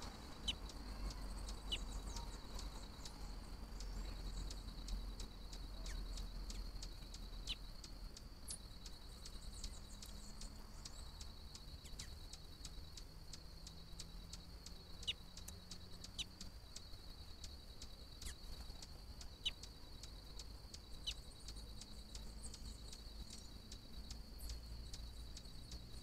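A bird's short, sharp call notes, each sliding quickly downward, about six of them at irregular intervals, over a steady high-pitched insect trill and a low rumble.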